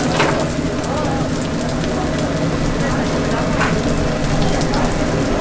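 Mung bean pancakes (bindaetteok) frying in hot oil on a flat griddle: a steady sizzle with occasional sharp pops of spattering oil.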